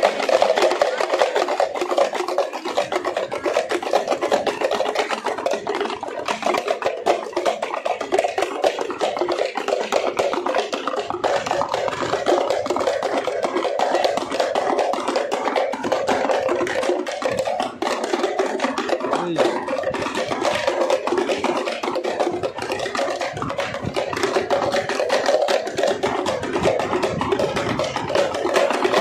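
Several parai (thappu) frame drums beaten together with sticks, a dense, fast stream of strokes that keeps going without a break.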